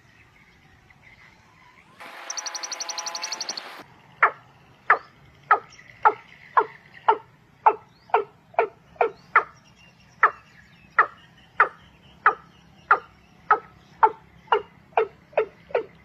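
Quail calls: a short buzzy trill lasting about two seconds, then a long series of loud, sharp notes, each sweeping steeply down in pitch, that speeds up from under two a second to about three a second.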